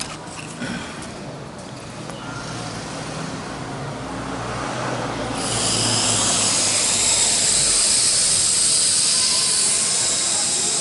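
L6036 toy quadcopter's electric motors and propellers spin up about halfway through to a loud, steady, high-pitched whine with a rushing hiss as it lifts off. There are a few faint clicks before the spin-up.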